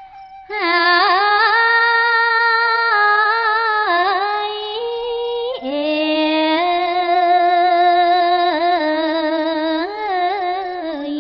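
Khmer smot: a woman's solo voice chanting a Buddhist verse in long, drawn-out, ornamented notes with wavering pitch. It begins about half a second in and pauses briefly for breath midway.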